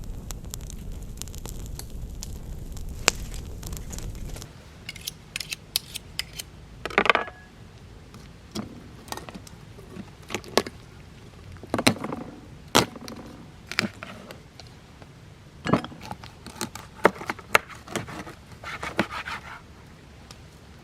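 Campfire crackling over a low steady rumble. About four seconds in the rumble stops abruptly, and irregular sharp clicks and short scrapes and rustles follow, the sound of things being handled during camp cooking.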